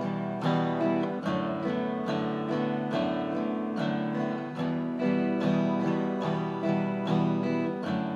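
Acoustic guitar strummed in a steady down-up pattern, switching back and forth between an E minor and a D6/9 chord.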